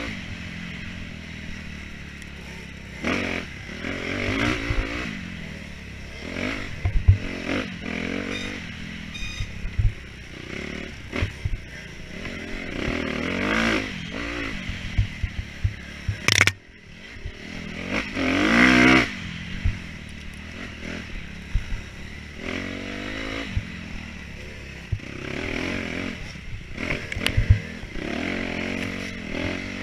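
Off-road motorcycle engine revving up and down again and again as it is ridden hard, the pitch climbing and dropping every second or two, with knocks and rattles throughout.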